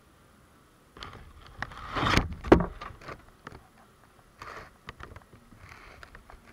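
Close rustling and scratching on the microphone, loudest about two seconds in with a sharp knock, then scattered clicks and short rustles: honeybees crawling over a camera set inside the hive.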